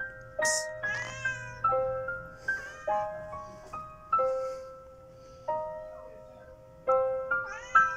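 A domestic cat meowing several times, short calls that bend up and down in pitch, over slow background piano music.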